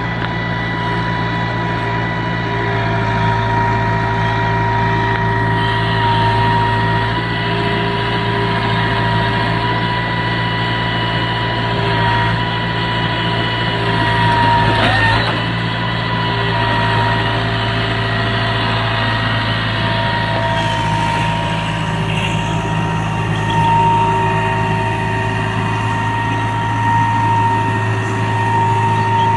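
Caterpillar 312B tracked excavator's diesel engine running steadily with a constant whine on top while the machine crawls onto a boat.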